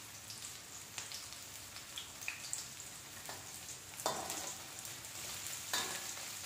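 Sliced onions sizzling and crackling in hot oil in a metal wok as they are sautéed. About four seconds in, and again near the end, a metal spatula scrapes across the pan as the onions are stirred.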